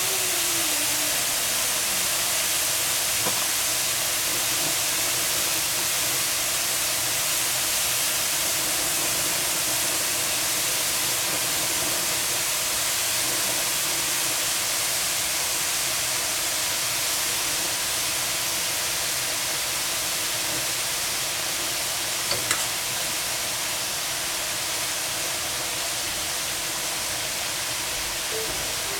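Mushrooms frying in a pan: a steady, even sizzle with a couple of faint clicks.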